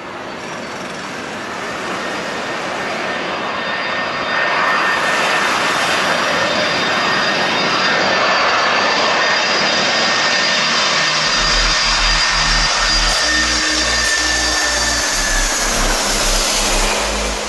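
Boeing 747 passing low overhead on final approach: the steady roar of its four jet engines with a high fan whine, growing louder as the plane nears. A low rumble joins in the last third.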